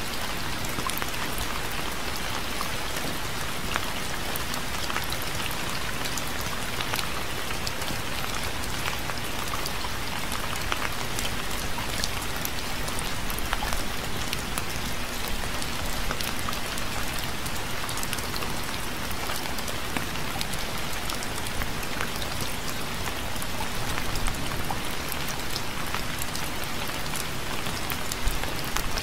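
Steady rainfall, a dense even hiss with many distinct drops pattering on a surface.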